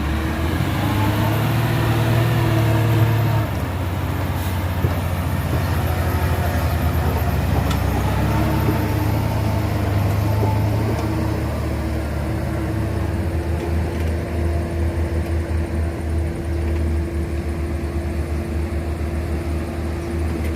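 Heavy diesel engine of earthmoving machinery running under load, rising and falling in the first half, then settling into an uneven pulsing beat.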